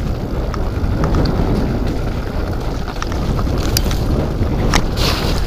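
Mountain bike rolling fast down a rough dirt trail: steady wind rush on the microphone over the tyres' rumble on dirt and stones, with scattered clicks and rattles from the bike.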